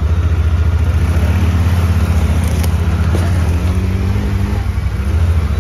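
Side-by-side UTV engine running close by, heard from aboard, with its pitch rising from about a second in as the machine pulls away.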